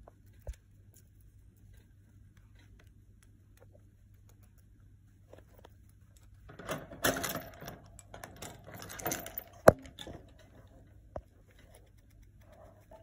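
Rustling and clattering at a wire hamster cage with shredded paper bedding, for about four seconds around the middle, with one sharp click near the end of it as the cage is opened. A faint steady hum lies underneath.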